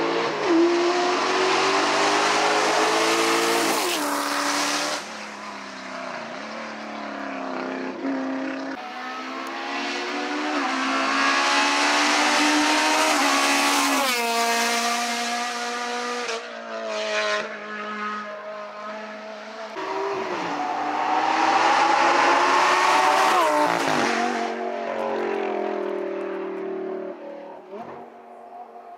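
Race cars accelerating hard at full throttle and passing close by, three in turn, the engine note climbing between quick upshifts and dropping as each car goes past.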